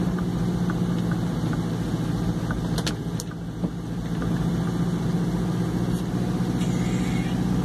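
Truck engine running steadily while driving, heard from inside the cab as a constant low hum, easing off briefly about halfway through.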